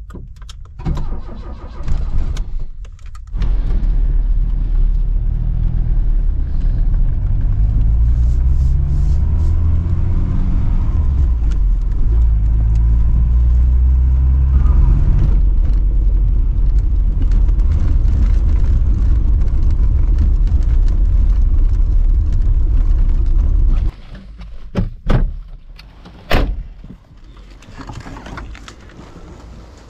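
Car engine heard from inside the cabin, cranked in short bursts and catching about three seconds in. It runs as the car pulls away, revs rising and falling through the gears. The engine stops about 24 seconds in, followed by a few clicks and a door-handle knock as the driver's door is opened.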